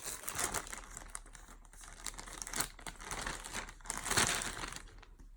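Plastic packaging crinkling and rustling irregularly as packaged clothes are handled and pulled out, loudest about four seconds in.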